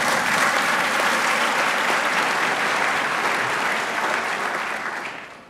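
Audience applauding, the clapping dying away over the last second.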